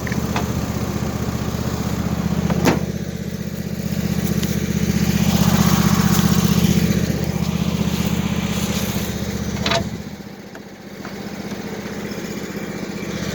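Husqvarna engine idling steadily after a cold jump start, with jumper cables still on to charge its weak battery. It grows louder in the middle and then drops to a quieter, lower running about ten seconds in, with a couple of short clicks.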